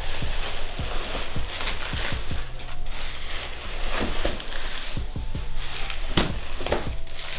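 Packaging being unwrapped and handled, with irregular crinkling and crackling as the wrapping is pulled off a used instrument cluster.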